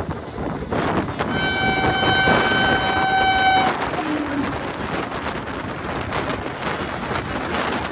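Indian Railways electric locomotive horn holding one steady note for about two and a half seconds, starting a little over a second in. After the horn, the locomotive and its coaches pass close by on the adjacent track, over the steady rolling noise of the trains.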